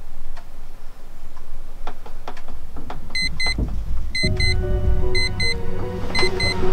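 A few soft laptop-keyboard clicks, then from about three seconds in an electronic alarm beeping in quick pairs, one pair each second. About a second later a film score with a deep rumble and held tones comes in under the beeps.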